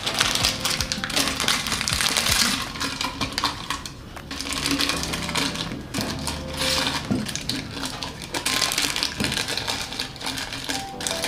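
Plastic-wrapped biscuit packets crinkling and tapping against glass as they are dropped one after another into a clamp-lid glass jar, over soft background music.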